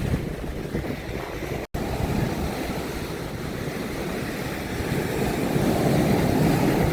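Ocean surf washing onto the beach, with wind buffeting the microphone; the sound drops out for an instant a little under two seconds in and grows louder over the last few seconds.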